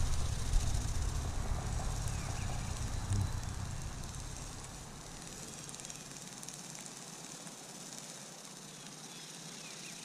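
Wind buffeting the microphone outdoors: an uneven low rumble that eases off about halfway through, leaving a faint steady hiss.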